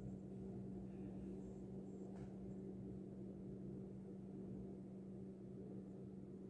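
A steady low hum with a faint click about two seconds in.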